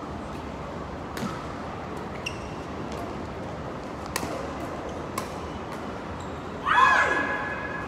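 Badminton rackets striking a shuttlecock: four sharp hits roughly a second apart in a reverberant sports hall. Near the end comes a loud, brief high-pitched squeal.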